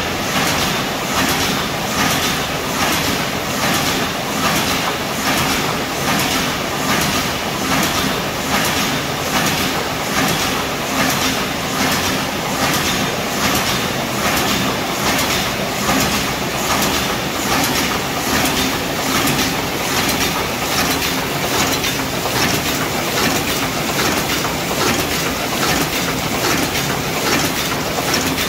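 A 9 oz paper cup forming machine with a hot-air sealing unit running, making a steady, rhythmic mechanical clatter.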